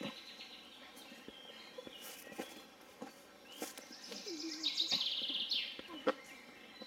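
Quiet outdoor ambience with a bird chirping in a high, rapid trill for about a second and a half past the middle, and a few scattered soft clicks and knocks.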